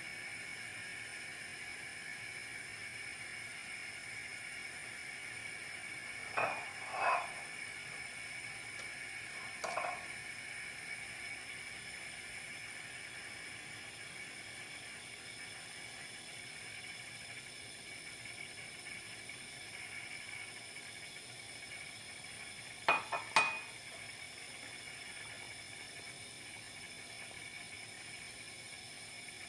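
Utensils clinking on kitchenware over a steady faint hiss. There are two clinks about six and seven seconds in, one near ten seconds, and a quick pair about twenty-three seconds in.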